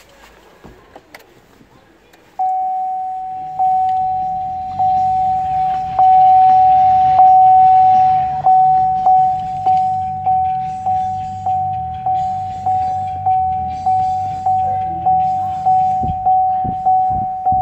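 Chevrolet Volt's electronic warning chime: a single-pitched ding repeating over a low hum, about one a second at first and then twice as fast from about halfway through.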